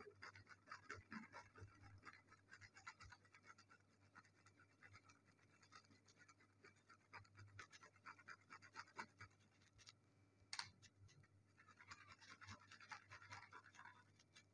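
Near silence with faint, irregular scratching and rustling, in small clusters, and one sharper tick about two-thirds through, over a faint low steady hum.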